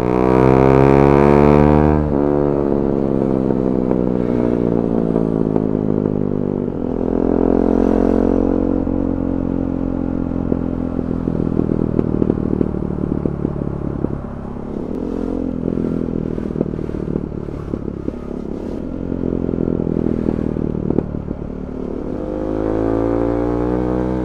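KTM 390 Duke's single-cylinder engine with a decat Akrapovic exhaust being revved. A hard rev that cuts off sharply about two seconds in, another rise later, then a long run of pops and crackles from the exhaust on the overrun. The revs climb again near the end.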